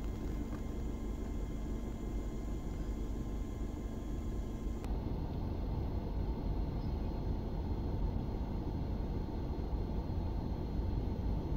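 Wind buffeting the microphone outdoors: a steady low rumbling noise whose character shifts about five seconds in.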